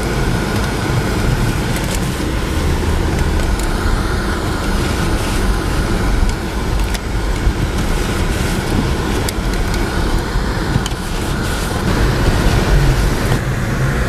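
Car driving along a snow-covered street, heard from inside the cabin: steady engine and tyre rumble.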